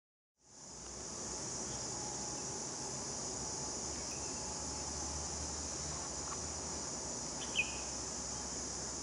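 Steady high-pitched insect chorus with a low hum beneath it, fading in during the first second; a short bright chirp stands out a little before the end.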